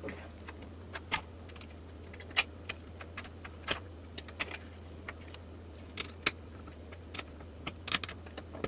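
Irregular small clicks and taps of a screwdriver working the tiny M2 bolts of a microswitch and handling its 3D-printed plastic mount, over a steady low hum.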